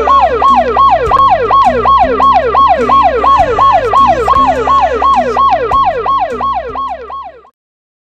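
Ambulance siren wailing in a fast yelp, rising and falling about three times a second over a low steady drone. It fades away near the end and stops.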